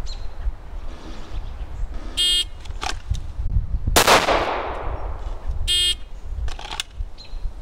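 An electronic shot timer gives a short, high beep as the start signal. About 1.8 s later comes a single pistol shot from a Glock 19 (9mm) drawn from the holster, a sharp crack with a short echoing tail. A second identical beep follows near the end.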